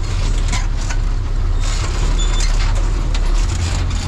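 A vehicle's engine running and its body rattling as it drives over a rough, rutted dirt road, heard from inside the cabin: a steady low rumble with scattered knocks and rattles.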